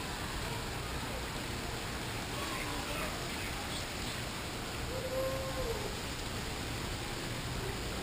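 Steady background hiss of open-air ambience with faint distant voices; a short call that rises and falls is heard about five seconds in.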